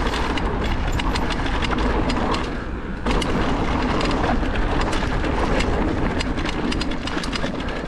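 Haibike AllMtn e-mountain bike riding down a dirt flow trail: tyres rolling over the ground and the bike rattling in a steady stream of small clicks, with wind rumbling on the microphone. The noise eases briefly about three seconds in.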